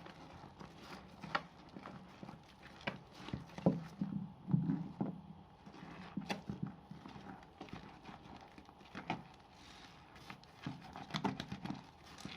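Wet soap being lathered, bits of leftover soap pressed together: irregular wet squelches and clicks, several a second, with no steady rhythm.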